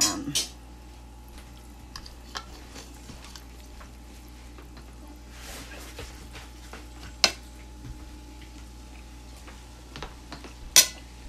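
Kitchen handling noises: scattered light clinks and taps of pots, utensils and glassware, with two sharp, louder clinks about seven seconds in and near the end, over a steady low hum.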